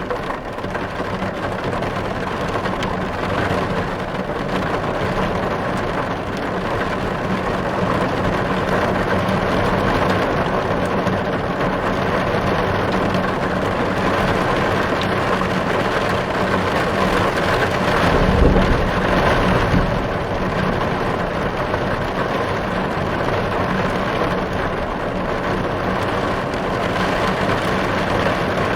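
Heavy rain falling on a car, a steady dense patter, with a louder low rumble about two-thirds of the way through.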